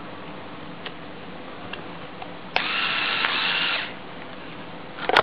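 Small electric motor of a Lego Technic mini bulldozer whining as it drives the model on its tracks, starting suddenly about halfway through and stopping after about a second. A few sharp clicks near the end.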